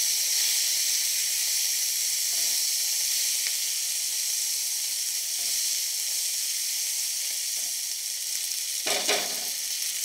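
Green beans, garlic and mint frying in olive oil in a nonstick pan over high heat: a steady, hissing sizzle while they are stirred with a silicone spatula.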